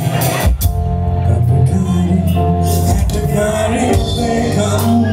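Music with a deep bass line, a beat and singing.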